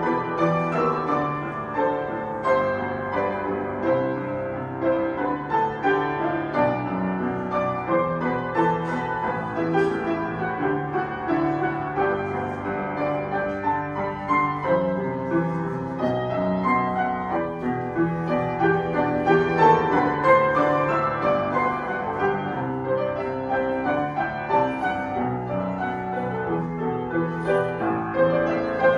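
Grand piano played solo: a flowing pop-song arrangement with continuous chords and melody and no pauses.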